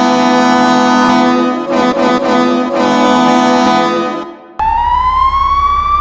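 Hockey arena goal horn sounding a long, deep, chord-like blast. About two seconds in it stutters into a few short blasts, then holds again and fades out past four seconds. Near the end a siren winds up, its single tone rising and then holding.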